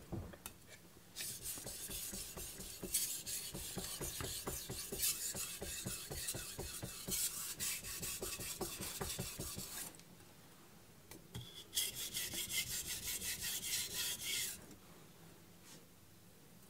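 A carbon-steel (aogami #2) knife blade scraping back and forth across a Naniwa Pro 1000-grit whetstone in quick, rhythmic strokes. It comes in two runs with a short pause between them, raising a burr along the edge.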